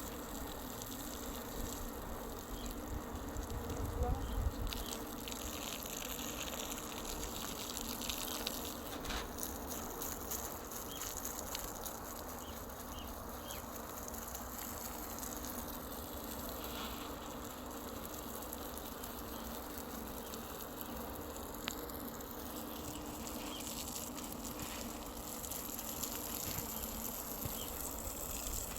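Water pouring steadily onto garden soil as plants are watered.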